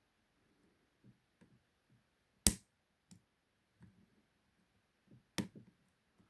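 Lock pick and tension wrench working the pins of a Ruma 50 mm padlock: faint scattered ticks, with two sharp clicks about two and a half seconds and five and a half seconds in.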